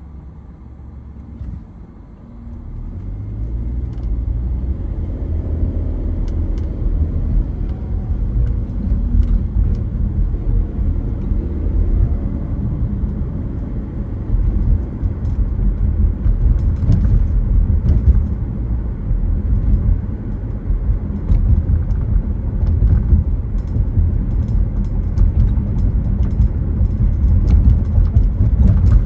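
Car driving on the road: a low engine and tyre rumble that swells about two seconds in as the car picks up speed, the engine note rising as it accelerates, then a steady drone of road noise.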